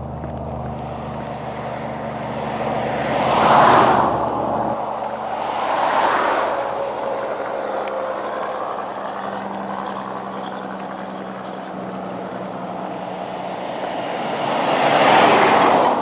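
Highway traffic passing close by: three vehicles go past, each a swell of tyre and engine noise that rises and fades, about three and a half seconds in, again a couple of seconds later, and near the end. A low engine hum dies away about five seconds in.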